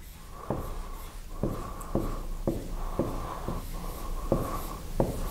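Dry-erase marker drawing on a whiteboard: a run of short strokes with a thin squeak, and sharp taps as the tip meets the board, about eight in all.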